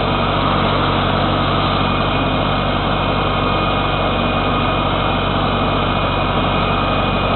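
Ford / New Holland 6640 tractor's four-cylinder diesel engine running steadily. A faint, high, steady whine joins about two seconds in.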